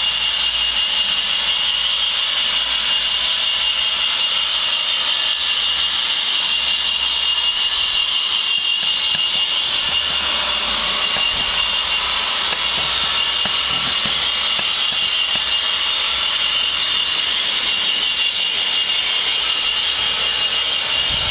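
Sound-fitted 00 gauge model diesel locomotive's sound decoder running at idle through its small speaker: a steady engine hum with a high, unchanging whine.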